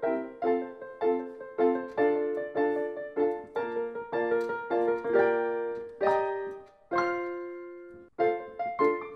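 Solo piano background music: a steady run of struck notes, then a chord about seven seconds in left to ring and fade before the playing picks up again.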